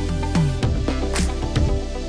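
Electronic background music with a steady drum beat and bass, and short synth notes that slide down in pitch near the start.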